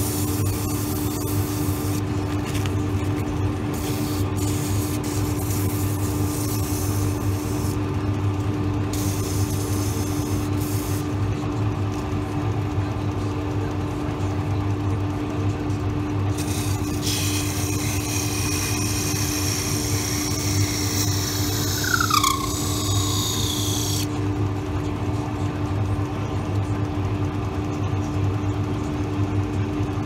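Wood lathe running with a steady hum, spinning a small wooden drawer knob in a chuck while hand turning tools cut it, the cutting coming and going as a scratchy hiss. The longest cut, from about 17 to 24 seconds in, is a high scraping that dips in pitch near its end.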